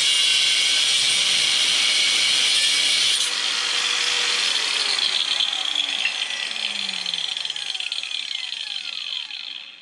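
Makita variable-speed angle grinder with a flap disc grinding a steel plate. About three seconds in it comes off the work and is switched off, its whine falling in pitch as the disc spins down.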